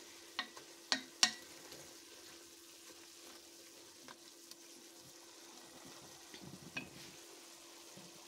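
Cubed chicken breast sizzling as it is sautéed with onion, garlic and spices in a stainless steel pot, almost cooked through. A wooden spoon stirs it, clicking sharply against the pot a few times in the first second and a half and again a little before the end.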